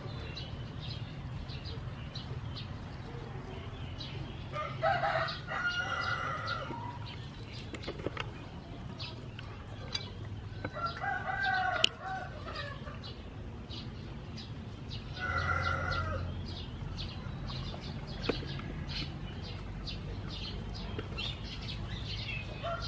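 A rooster crows three times, a few seconds apart, over small birds chirping. A single sharp click sounds near the middle.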